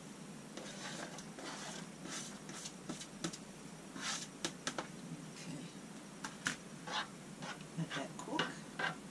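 Diced onion scraped off a plastic cutting board into a skillet of broth, then a spoon stirring and scraping in the pan, a run of irregular clicks and scrapes from about four seconds in.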